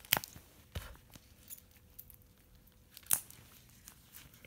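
Plastic toy eggs and their shrink-wrap being handled: a few short crinkles and clicks, near the start, just under a second in and about three seconds in, with quiet between.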